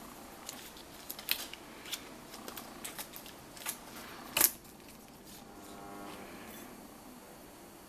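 Handling noise from a gas mask's valve body and metal hose fitting turned in gloved hands: scattered light clicks and taps, the loudest a sharp click about four and a half seconds in, followed by a faint squeak.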